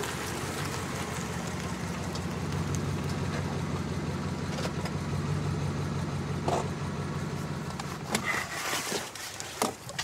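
Jeep Grand Cherokee SUV's engine running steadily with a low hum. A few short clicks and knocks near the end.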